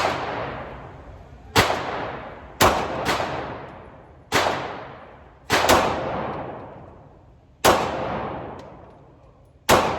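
Glock 19 9mm pistol firing about eight shots at an irregular pace, two of them in quick pairs, each shot followed by a long echoing decay in the enclosed range.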